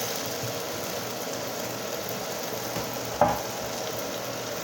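Thickened chicken and garlic sauce sizzling steadily in a frying pan on the stove, with a single sharp knock about three seconds in.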